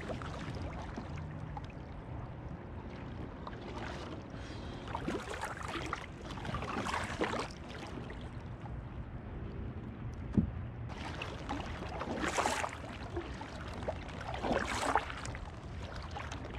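Kayak paddle strokes, the blades dipping and splashing in the water now and then over steady low background noise, with a single sharp knock about ten seconds in.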